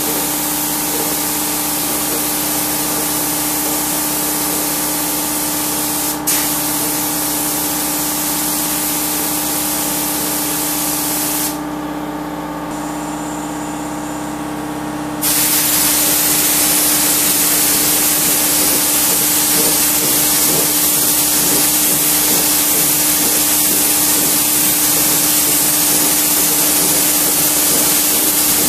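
Compressed-air spray guns hissing while spraying chemical silvering (spray chrome) onto a stone tile, over a steady machine hum. The hiss stops about eleven seconds in, leaving only the hum, then resumes louder after a few seconds as a twin-bottle spray gun lays down the silver mirror coat. A short click sounds about six seconds in.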